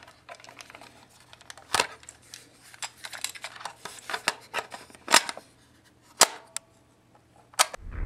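Plastic clicks and clatter of a portable cassette player being handled, its headphone plug pushed in and a cassette tape fitted into it, with several sharp clicks at about two, five, six and seven and a half seconds in. A faint steady low hum lies underneath.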